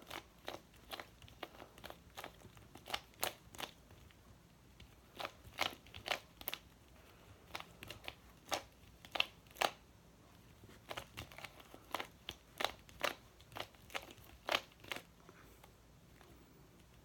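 Magnetic Skewb puzzle being turned fast during a speedsolve: sharp, irregular clicks and clacks of its pieces, about one to three a second, with short pauses.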